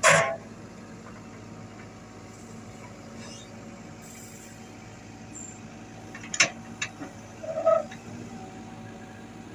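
Komatsu WB93R backhoe loader's diesel engine running steadily at a low hum, with a sharp clank right at the start and two more clanks around six and a half and seven and a half seconds in.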